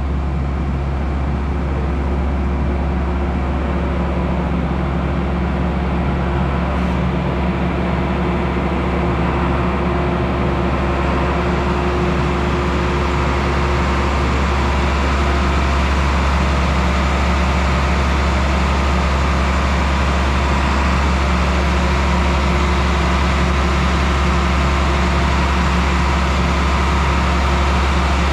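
An engine running steadily with a deep hum, getting a little louder and brighter after about ten seconds.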